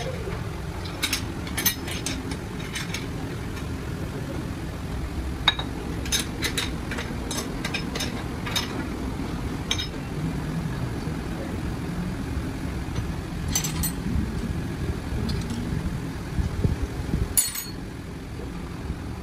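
Scattered metallic clinks and taps of wrenches and steel parts being handled while a gear hobbing machine is set up, over a steady low hum of machinery.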